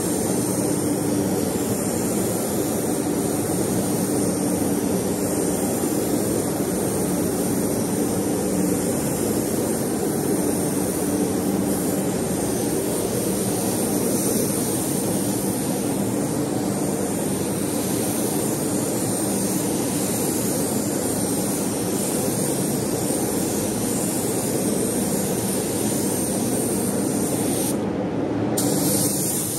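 Spray-painting equipment running steadily while a coat of yellow paint is sprayed: a continuous rush of air with a low steady hum.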